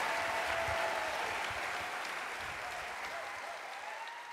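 Audience applauding, the sound gradually fading out.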